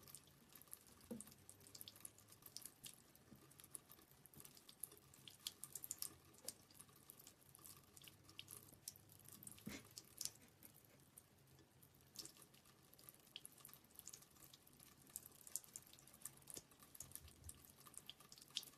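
Faint trickle and drip of a thin stream from a bathroom sink faucet, with soft, irregular splashing ticks as a Siamese cat laps at the water.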